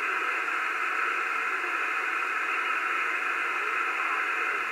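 Steady static hiss from a Cobra 2000 GTL Supersnake CB radio's speaker, receiving on lower sideband between transmissions, with faint warbling underneath.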